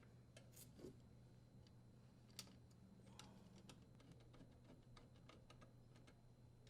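Near silence with faint, irregular small clicks and ticks: a Phillips screwdriver and the metal cover plate being handled as the screw securing the dishwasher's electrical box cover is driven in.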